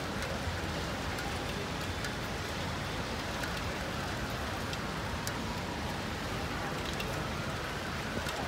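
Steady rain falling, with scattered sharp ticks of drops hitting a surface close by.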